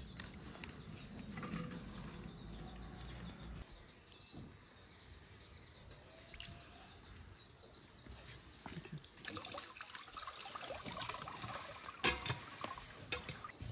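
Water sloshing in a metal basin as a colander of raspberries is rinsed in it. Near the end it trickles and drips back into the basin as the colander is lifted out to drain, getting louder, with a sharp clink of metal about twelve seconds in.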